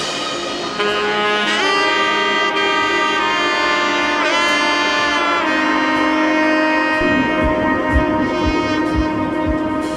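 Background music: a sustained melodic lead line of held notes, one bending down and back up near the middle, over steady chords, with a soft low beat coming in about seven seconds in.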